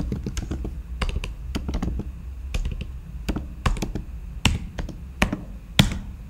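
Computer keyboard typing: separate keystrokes at an uneven, unhurried pace as a short command is typed out, with a few sharper keystrokes near the end.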